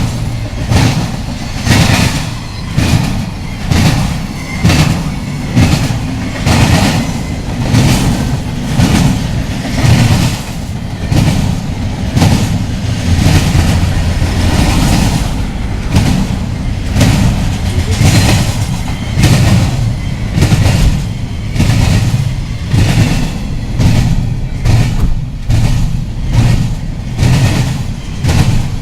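Train passing close by: a steady low rumble with regular clacks of the wheels over rail joints, a little more than one a second.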